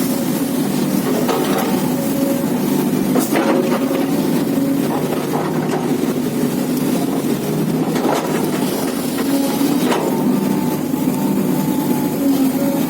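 A large hydraulic excavator's diesel engine runs steadily under load, with a held mechanical whine over it. A few sharp knocks come through, one about three seconds in and two more near eight and ten seconds.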